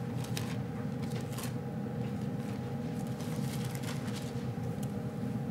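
Thin Bible pages being leafed through: soft, scattered paper rustles and flicks over a steady room hum.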